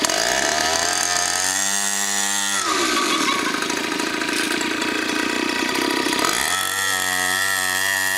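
Small two-stroke engine of a child's mini dirt bike, its revs falling to a low idle about a second in, rising again near three seconds, and dropping back to idle about six and a half seconds in as the throttle is opened and closed.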